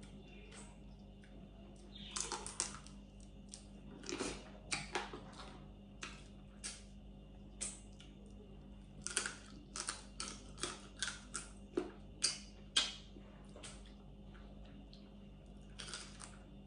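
Shells of cooked blue crab cracking and crackling as they are picked apart by hand and the meat is sucked from them: irregular sharp clicks, thickest about two seconds in, around four to five seconds, and from about nine to thirteen seconds.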